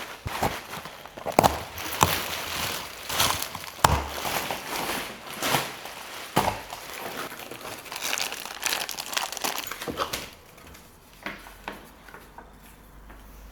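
Packing material being handled during a guitar unboxing: crinkling and rustling, with sharp clicks and knocks mixed in. The handling stops about ten seconds in, leaving only a few faint taps.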